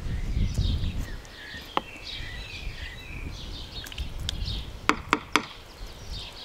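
Small birds chirping over and over, with a low wind rumble on the microphone. A few sharp clicks stand out, three of them close together about five seconds in.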